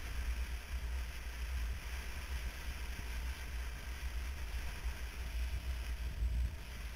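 Motorcycle riding at town speed, heard as a steady wind rumble on the bike-mounted camera's microphone over an even hiss of road and riding noise.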